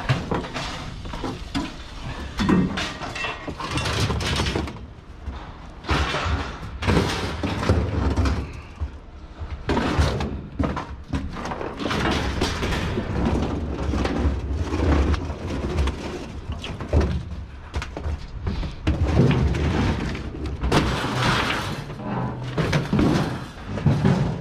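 Sheet-metal appliances and a large cylindrical tank being dragged, tipped and dropped onto a scrap pile: a run of irregular metal clatters, scrapes and heavy thuds.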